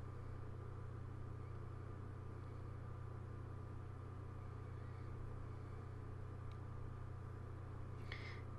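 Low, steady hum with a faint hiss and a thin steady tone above it: background tone of the recording. A faint click comes about six and a half seconds in, and a brief faint sound follows near the end.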